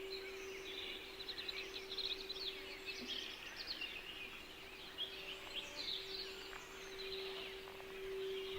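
Songbirds chirping and trilling in a busy chorus over a steady, unbroken low tone, the added throat-center meditation frequency.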